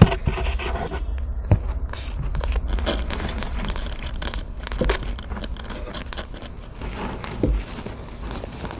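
Close handling noise: hands scraping and rustling against a newborn kitten and its terry-cloth towel, with scattered sharp clicks and knocks over a low rumble that stops after a knock near the end.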